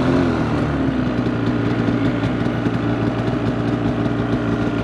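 Snowmobile engine running steadily, its pitch holding even.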